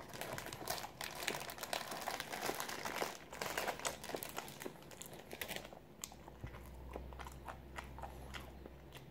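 Plastic sandwich wrapper crinkling and crackling as a sandwich is pulled out of its packaging, dense for the first five or six seconds, then scattered lighter crackles. A low steady hum comes in about six seconds in.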